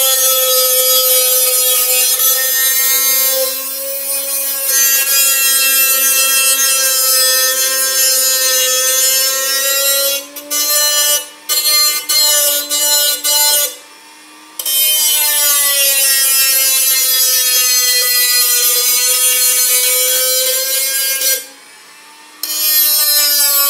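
Black+Decker RT18KA rotary tool running a small cutoff wheel through the metal side of a tin can: a steady high motor whine with a gritty, hissing screech of the cut. The sound breaks off several times between about ten and fourteen seconds in, and once more briefly near the end.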